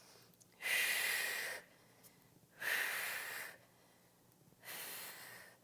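A woman breathing audibly through the mouth during exercise reps: three breaths, each about a second long and about two seconds apart, paced with the rows of a bird dog row.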